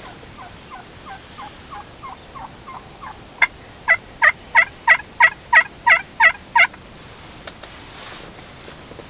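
Turkey hen yelping: a run of soft yelps, then a series of about ten loud, evenly spaced yelps, about three a second, that stops well before the end.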